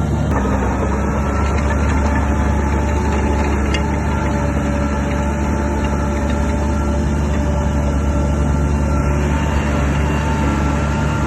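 Shantui DH17 crawler bulldozer's diesel engine running steadily at a constant pitch, a low drone with a few faint clanks.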